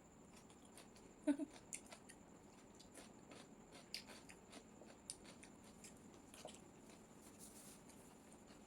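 Quiet eating sounds of chowmein and chilli chicken: soft chewing with a few small clicks and smacks, the sharpest about a second in.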